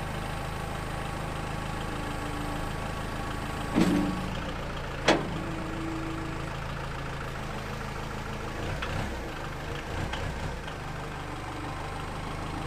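Kubota L-series compact tractor's diesel engine running steadily while the front-end loader is raised, curled and lowered, with two sharp clunks about four and five seconds in.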